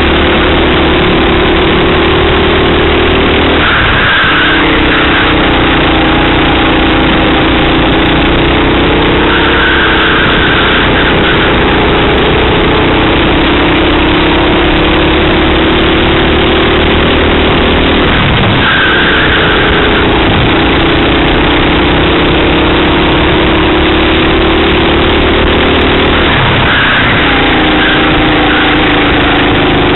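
Racing kart engine recorded from the kart itself, loud and continuous. Its pitch climbs slowly through each straight and falls sharply three times as the driver lifts off for a corner.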